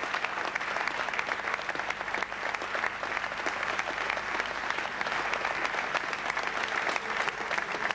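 Audience applauding: many hands clapping in a dense, steady round of applause.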